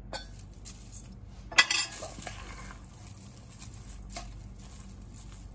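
A spoon clinking and scraping against a mixing bowl while stirring a minced kebab mixture, with scattered taps and one sharp clink about one and a half seconds in.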